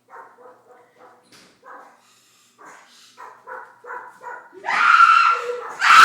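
A dog making a run of short, high, whining yips, then two much louder barks about five and six seconds in.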